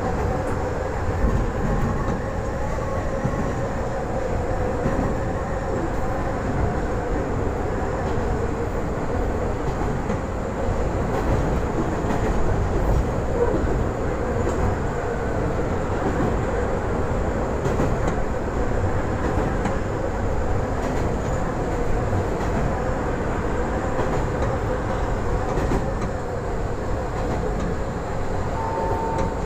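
Kanto Railway KiHa 310 series diesel railcar running, heard from just behind the driver's cab: a steady rumble of engine and wheels with a constant hum. A short beep sounds near the end.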